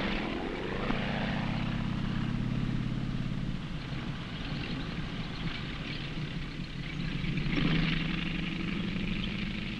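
Tank engines droning steadily as tanks move cross-country. The low hum eases off in the middle and swells again near the end, over the hiss of an old film soundtrack.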